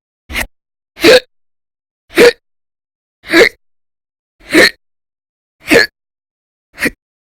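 A woman's violent, very loud hiccups: seven in a row at about one a second, each a short sharp burst, the first and last softer than the rest. They are part of a bout of chronic hiccups that runs for many hours a day.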